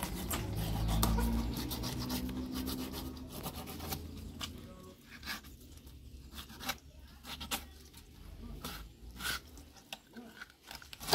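A kitchen knife filleting and scraping small tilapia on a wooden board, giving a run of short, irregular scraping strokes that are clearest from about four seconds in. A low droning sound is loudest in the first few seconds.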